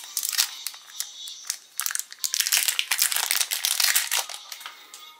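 Thin clear plastic wrapper crinkling and crackling as fingers work it open to free a small button badge, the crackling thickest and loudest in the second half.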